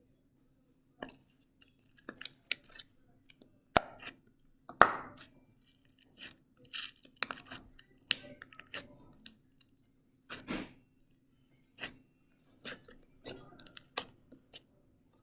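Red glitter slime being mixed, giving irregular sticky clicks, pops and squelches, the loudest about five seconds in, over a faint steady low hum.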